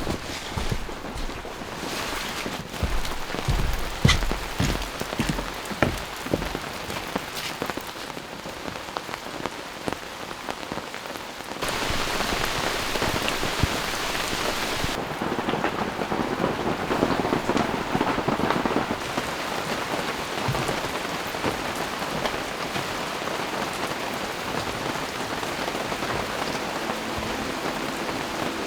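Rain falling. At first there are many separate heavy drops striking a surface. After about twelve seconds it changes abruptly to a denser, steady downpour hiss.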